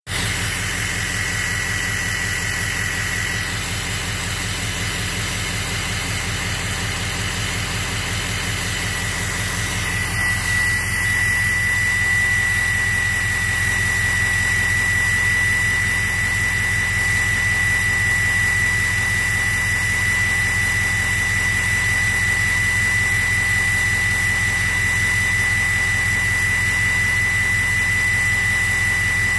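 Ford 6.0 Powerstroke V8 turbodiesel running steadily, heard at the tip of its 4-inch turbo-back exhaust, with a steady high-pitched whistle over the engine rumble. The whistle comes and goes in the first few seconds, then holds strong and unbroken from about ten seconds in.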